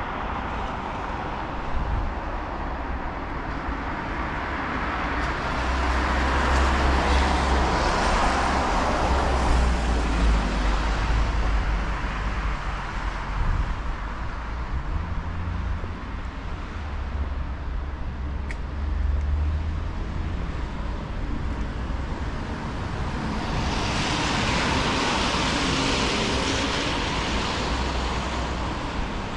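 City street traffic: motor vehicles running past with a low engine rumble and tyre hiss that swell and fade. Louder passes come about a quarter of the way in and again near the end.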